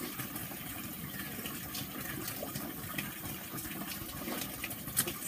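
Steady rushing, water-like background noise, with a few faint mouth clicks from a man eating soft, juicy araza fruit and one sharper click about five seconds in.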